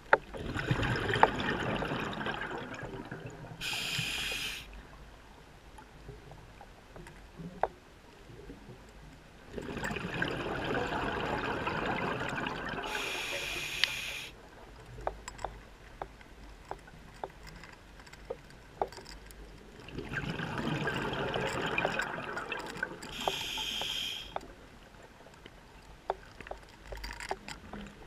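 Scuba diver's breathing heard underwater: three rushes of exhaled bubbles from the regulator, about ten seconds apart and each lasting a few seconds, each ending in a short higher hiss. Scattered small clicks in the quieter gaps between breaths.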